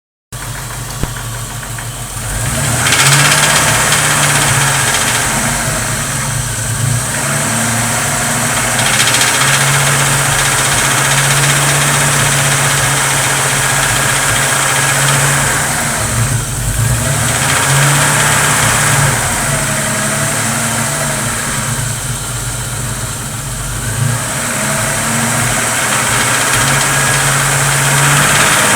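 Chevrolet 4.1 straight-six engine running and revved up and back several times, sounding the strange noise the owner is asking about.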